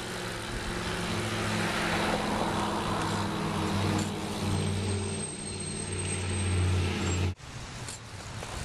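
Engine running steadily with a low hum, growing louder and then cutting off abruptly about seven seconds in.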